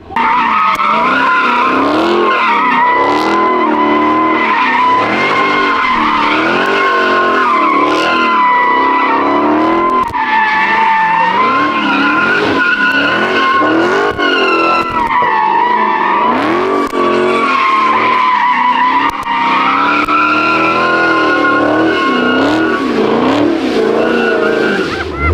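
A car doing a burnout or donuts: tyres squealing continuously at a steady pitch while the engine revs up and down over and over.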